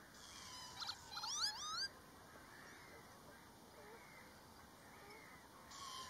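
Canada geese honking: a short flurry of clipped notes followed by several honks rising in pitch, about a second in, and another flurry starting near the end, with quiet outdoor background between.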